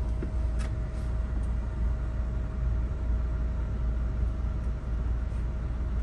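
Steady low hum and rumble of the tool truck's cooling equipment running, with a faint steady whine over it and a couple of faint ticks in the first second and a half.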